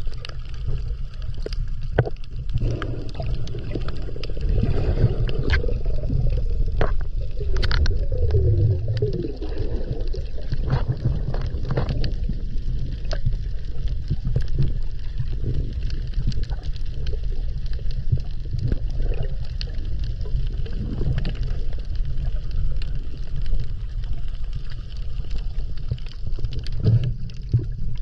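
Underwater sound heard through a camera housing: a steady low rumble of water moving against it, with scattered clicks and crackles, and a brief gurgling stretch in the first half.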